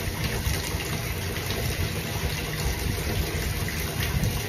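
Shower water running in a steady rush.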